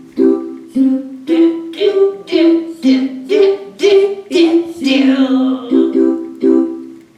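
C major chord (C–E–G) sounded as a block chord on a keyboard, then broken into its single notes stepping up and down, a little over two notes a second, and struck again as a block chord near the end.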